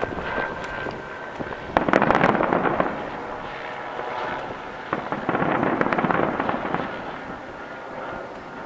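Aerial firework shells bursting in two volleys of bangs and dense crackling, about two seconds in and again about five seconds in.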